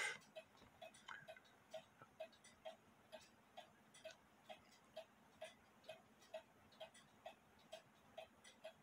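Faint, steady ticking of a clock, a little over two ticks a second.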